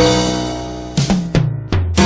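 Background music: a chord struck at the start and fading, then drum hits and two quick falling sweeps about a second in, leading into a fast steady beat near the end.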